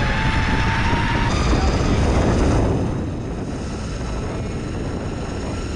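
Wind rumbling on the microphone of a riding electric skateboard, with a steady whine from the board's electric motors that stops about a second in.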